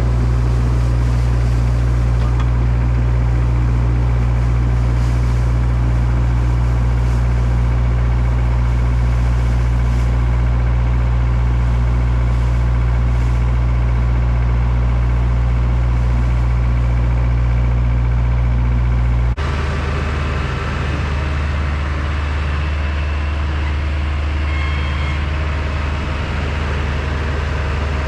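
Heavy diesel engine of farm machinery at corn silage harvest, running steadily at a constant speed. About two-thirds of the way through, the sound switches abruptly to a different, slightly quieter engine drone.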